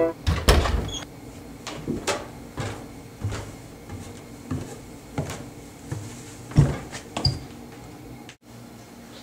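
A string of uneven knocks and clicks, about one or two a second, over a faint low hum. The loudest come just after the start and about six and a half seconds in.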